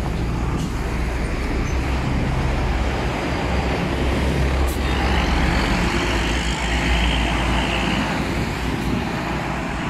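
Road traffic dominated by a heavy vehicle's engine running with a steady low rumble; a rushing hiss rises over it about halfway through.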